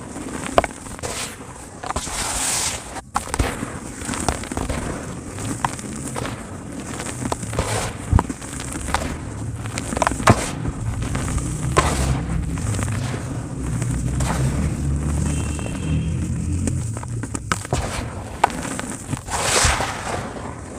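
Dry cement crumbling in a tub: continuous gritty crunching and crackling, broken by many sharp snaps as pieces break.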